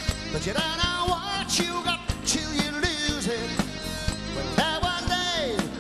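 Live showband playing a rock-pop number, with drums keeping a steady beat under guitar and keyboards, while a male lead vocalist sings.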